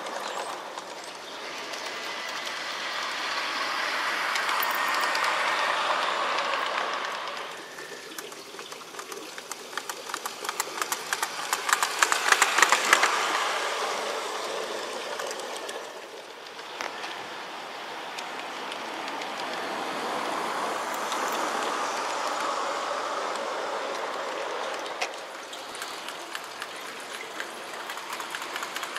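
G-scale model train, a Mogul locomotive pulling passenger cars, rolling along garden railway track. The wheels rumble and click over the rail joints, swelling and fading about three times as the train comes close and moves away. It is loudest and most clicky about halfway through.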